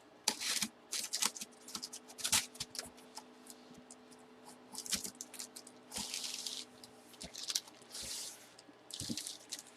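Hands handling packaging: short bursts of plastic rustling and crinkling, with light taps and clicks between them.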